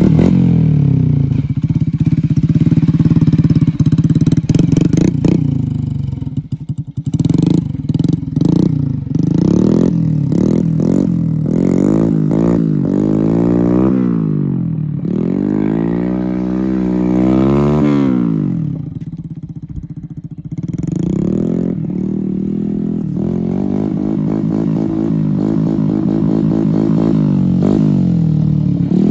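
Small motorcycle engine running and revving as it is ridden, its pitch rising and falling over and over, with a brief drop in loudness about two-thirds of the way through.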